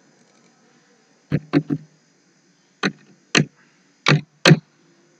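Computer keyboard keys and mouse buttons clicking: seven sharp clicks, a quick run of three, then two pairs.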